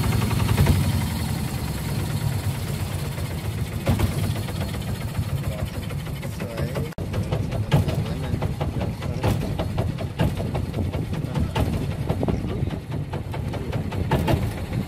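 Boat engine running at low speed: a steady low drone with a fast, even knock.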